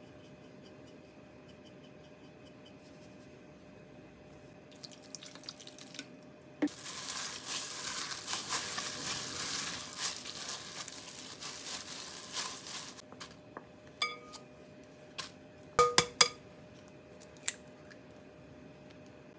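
Plastic bag crinkling and rustling for about six seconds as a bag-covered hand kneads ground meat in a glass bowl. Near the end come a few sharp taps, an egg being cracked on the bowl.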